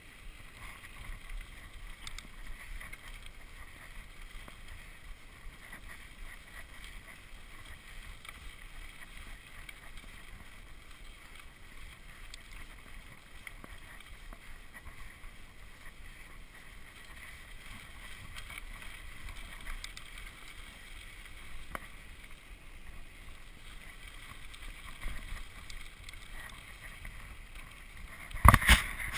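Mountain bike rolling along a dirt fire road: a steady noise of tyres on dirt and wind with a few faint clicks, then a sudden loud clatter near the end.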